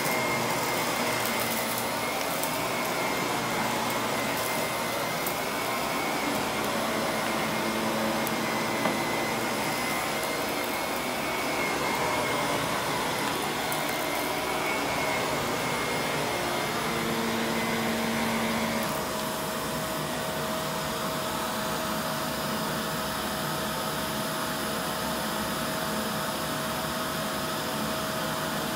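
Vacuum cleaner running steadily with a high whine, with light crackling of debris being picked up in the first half. A little after two-thirds of the way through, the whine drops away and the motor runs a little quieter and more evenly.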